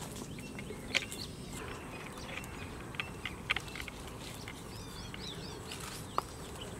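Small birds chirping in a short cluster about two-thirds of the way through, over a steady outdoor background. A few sharp clicks and taps come from a mixing-paddle shaft being fitted into a hand-held electric mixer, which is not running.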